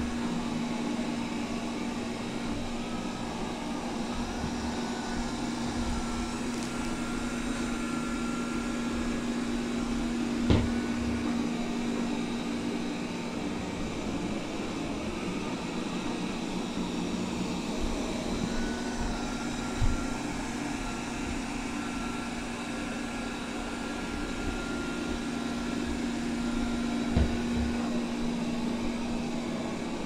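Honiture Q5 robot vacuum cleaner running in spot-cleaning mode on a rug: a steady motor hum with a fainter whine above it that comes and goes, and three short knocks several seconds apart.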